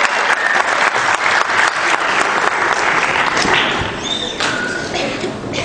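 Audience applauding, a dense patter of clapping that thins out about four seconds in.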